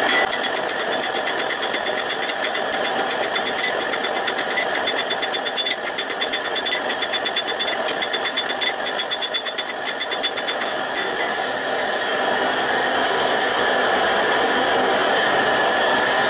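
Blacksmith's hand hammer striking a red-hot steel rod on the anvil in a fast, even run of blows, which stops about eleven seconds in. A steady rushing noise, from the forge, carries on underneath throughout.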